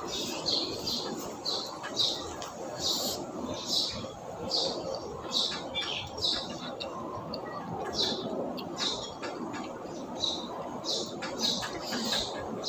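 A person chewing food with the mouth open enough to smack, in a steady rhythm of short wet smacks a little faster than once a second.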